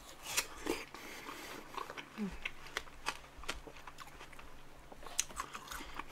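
Close-miked biting and chewing of fresh watermelon: irregular crisp, wet crunches and mouth clicks, a little louder near the start and again near the end.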